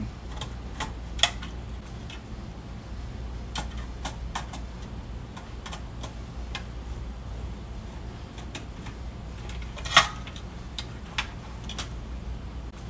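Screwdriver taking out the screws that hold a power supply board in an instrument chassis: irregular small metallic clicks and ticks, with one louder click about ten seconds in, over a steady low hum.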